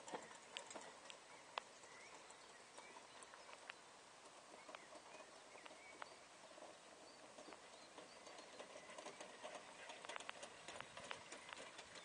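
Faint hoofbeats and light clicking of harness and carriage as a small pony trots pulling a four-wheeled driving carriage on grass. The clicks grow closer and more frequent near the end.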